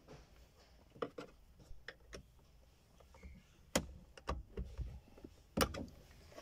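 Light plastic clicks and knocks from hands and a tool working at the back of an Audi Q7 steering wheel to release the horn pad's retaining clips, with two sharper clicks about four and five and a half seconds in.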